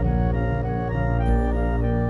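Background music: held chords over a steady low bass, with notes changing every fraction of a second.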